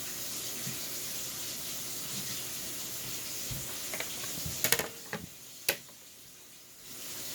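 Water running from a tap as a steady hiss, cut off about five seconds in. A few sharp clicks and knocks follow, then the water runs again near the end.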